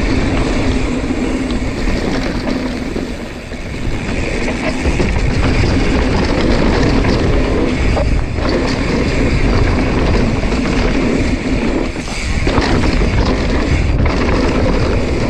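Wind rushing over an action camera's microphone and knobby tyres rolling on packed dirt as a mountain bike is ridden through a dirt-jump line. The noise is loud and steady, with a deep rumble and a couple of brief dips.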